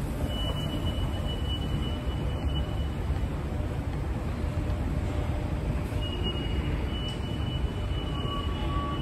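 Subway station escalator running: a steady low mechanical rumble from the moving steps and drive. A faint thin high tone comes and goes over it, and a second steady tone joins near the end.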